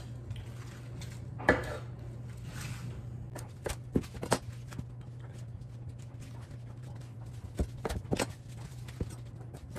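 Chef's knife cutting beet leaves from their stems: scattered sharp taps and knocks of the blade on the countertop, some in quick clusters, with the leaves rustling as they are handled, over a steady low hum.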